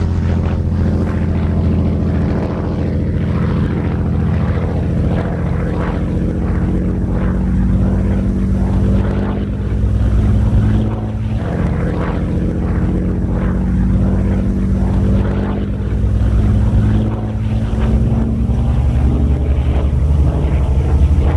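Messerschmitt Bf 109 G-4's Daimler-Benz DB 605A inverted V12 engine running steadily as the fighter flies overhead. Its pitch drifts slightly and its level swells a little now and then.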